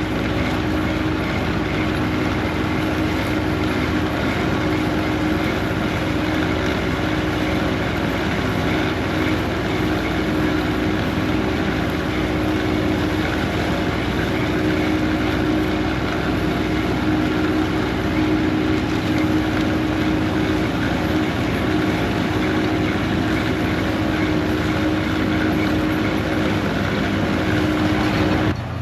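Large tractor engine running steadily under load, with a constant hum.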